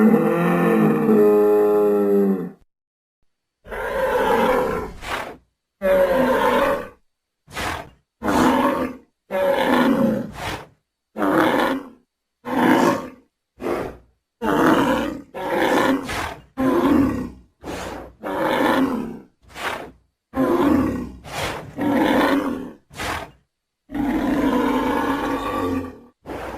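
Designed Centrosaurus sound effects: a long pitched bellow, then a run of about twenty short roars and grunts with brief silences between them, and a longer roar near the end.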